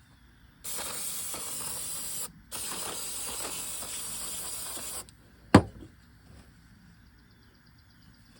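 Aerosol spray cleaner hissing in two long bursts, about a second and a half and then two and a half seconds, as a power steering pump is cleaned before rebuilding. A single sharp knock follows, the loudest sound.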